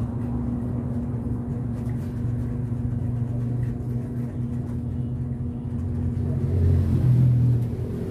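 A steady low mechanical hum that swells louder about seven seconds in, with a few faint clicks.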